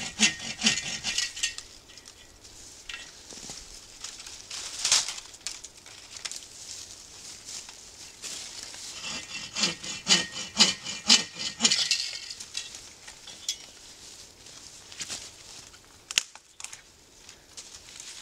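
Folding bow saw cutting through a dry, fallen tree limb: two runs of quick back-and-forth strokes, one at the start and one about nine to twelve seconds in, with a single sharp scrape about five seconds in.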